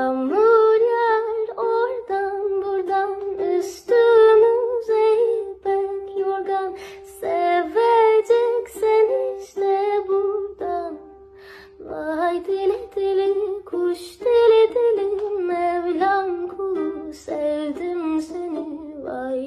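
A woman singing a slow Turkish folk melody, accompanied by a strummed ukulele, with a brief pause between phrases about eleven seconds in.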